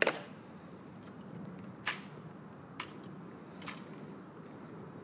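Guards' shoes, fitted with metal heel taps, clicking sharply on the stone plaza as the soldiers march, about one click a second. The first click is the loudest.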